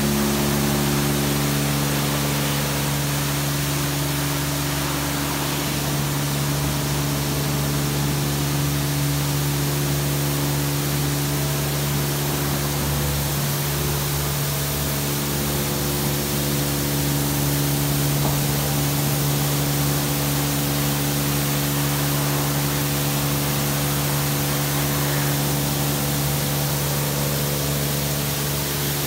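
Rollover car-wash gantry's high-pressure water jets spraying with a steady hiss, over a steady low hum from its pump motors.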